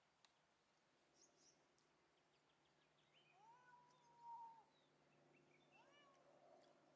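Kitten meowing twice: one long drawn-out meow, then a shorter one. Faint high chirps can be heard about a second in.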